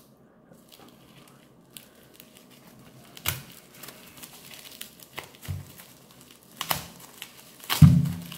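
Bubble wrap crinkling while tape on a package is slit with a folding knife and torn back, a run of small crackles with a few sharper rustles, the loudest near the end.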